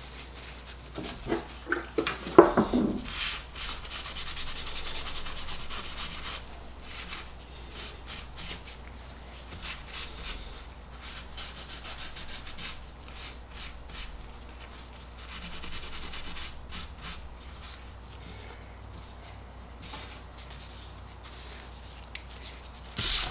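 Paper rag rubbing and wiping a Honda Gold Wing GL1100 clutch cover to clean it. A few knocks come in the first seconds, then a stretch of fast scrubbing strokes, then short scuffs of handling.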